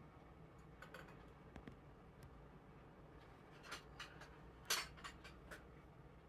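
Near-silent room with a few faint, brief clicks and rustles, the loudest a short scuff about three-quarters of the way through.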